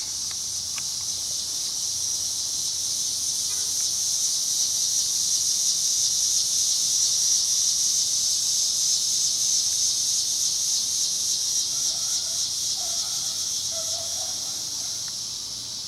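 Steady high-pitched trill of insects, swelling toward the middle and easing off near the end.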